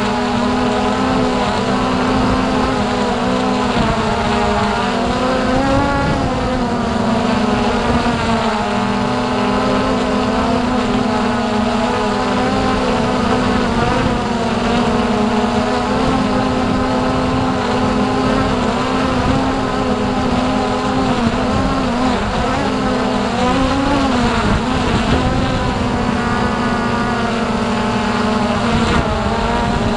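Hubsan X4 Pro H109s quadcopter's motors and propellers whining steadily in flight, several tones that bend up and down now and then as the motor speeds change.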